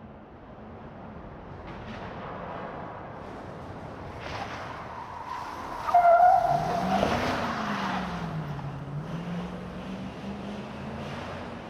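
A truck driving inside a building: its engine noise builds steadily, and a brief high-pitched squeal about six seconds in is the loudest moment. After the squeal the engine's pitch dips and climbs again.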